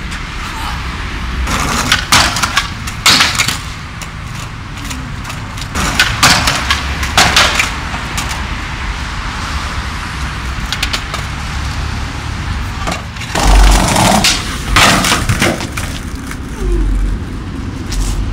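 Skateboard smacking and clattering on concrete in three bursts of sharp knocks as the skater bails on stair sets, with a steady rolling and rumbling noise in between.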